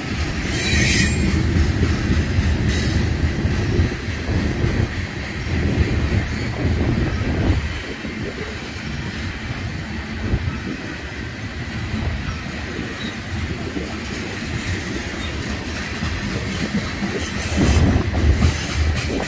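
Freight train cars rolling past on steel rails: a steady rumble and wheel clatter, with a faint thin wheel squeal throughout. Short sharper squeals flare up about a second in, again around three seconds, and near the end.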